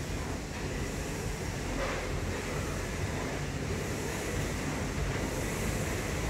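Ski ergometer's air-resistance fan flywheel whooshing steadily as its handles are pulled down in repeated strokes.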